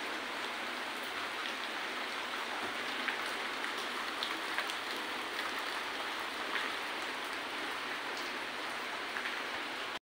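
A steady, even hiss like rain falling on a surface, dotted with faint scattered light ticks.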